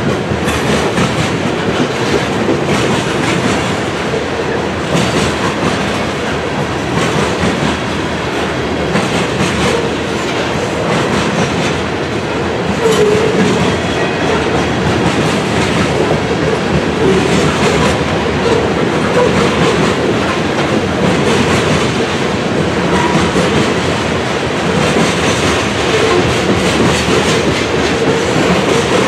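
Covered hopper cars of a freight grain train rolling past at steady speed: steel wheels clicking over the rail joints over a continuous rumble, with brief faint wheel squeals now and then.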